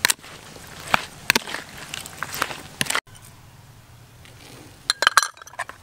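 Metal spoon scraping and clacking against a plastic mixing bowl as chopped pork, shrimp and shallots are stirred together, in sharp, irregular clicks, with a brief break about three seconds in and a quick flurry of clicks near the end.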